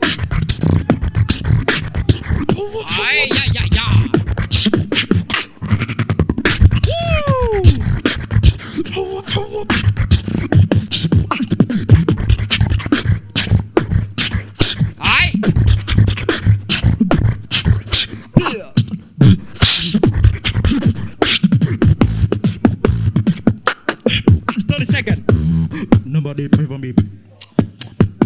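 Solo beatboxing into a handheld microphone: fast, dense drum sounds over a steady deep bass, with a few sliding vocal tones, one falling clearly about seven seconds in.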